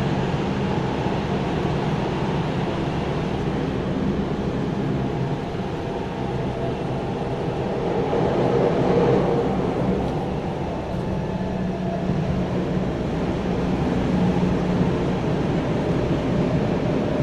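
Interior running noise of a Tokyo Metro 9000 series train car: a steady rumble of wheels and running gear on the rails, swelling a little about eight or nine seconds in.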